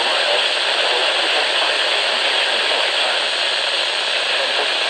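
Steady loud radio static hiss from a weather radio receiver on a weak signal.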